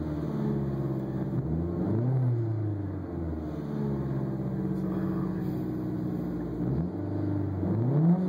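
2011 Mitsubishi Lancer Evolution X GSR's turbocharged 2.0-litre four-cylinder engine, fitted with a cat-back exhaust, running just after start-up and revved in two short throttle blips, about two seconds in and near the end, the pitch rising and falling back each time. Heard from inside the cabin.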